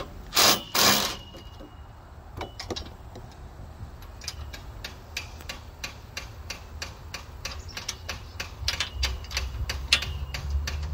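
A cordless impact driver gives two short bursts loosening a 15 mm roll-cage bolt, then a ratchet wrench clicks in quick, uneven strokes for several seconds as the bolt is backed off by hand.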